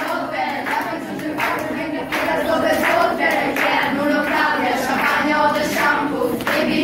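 A group of girls singing together in chorus, growing louder about two seconds in.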